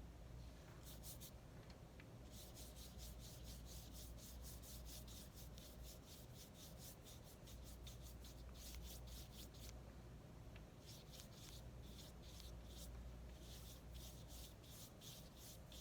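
A paintbrush swept quickly back and forth across watercolour paper, a faint scratchy rubbing of several strokes a second. It pauses briefly twice, about two seconds in and near the ten-second mark, under a steady low hum.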